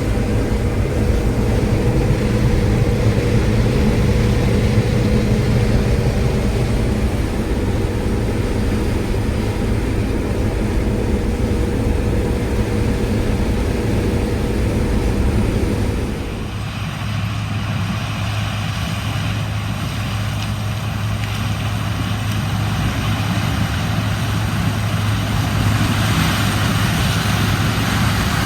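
Heavy farm-machine diesel engine running steadily. About halfway through, the sound changes abruptly to a lower, deeper hum.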